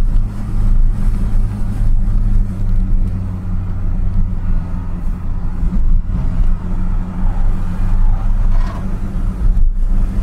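Renault Megane Coupe descending a steep hill at steady speed: a steady low engine and road drone with wind noise rushing over the car's roof.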